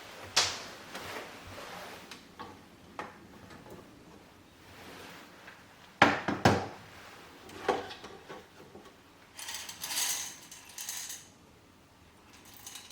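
Scattered clinks and knocks of kitchen utensils and containers being handled, the loudest a pair about six seconds in, with a short rattling hiss about ten seconds in.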